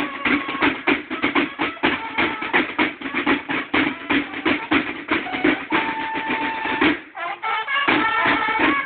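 Banda de guerra drum and bugle corps playing: field drums beating fast, dense strokes while bugles sound a fanfare over them. One long held bugle note comes about six seconds in, then a short break just after seven seconds before drums and bugles come back in together.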